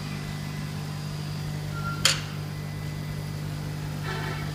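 Laser engraving machine running with a steady low hum, with one sharp click about two seconds in.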